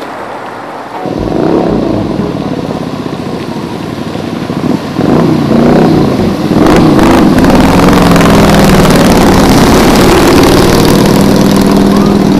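Motorcycle engine revving as the bike ploughs through deep floodwater, its note rising and falling, with water rushing and splashing around it. It gets louder from about halfway through, as the bike comes close.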